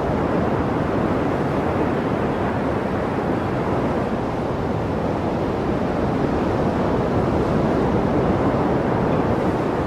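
Gale-force wind blowing hard across the microphone with storm surf breaking, a steady rushing noise that never lets up.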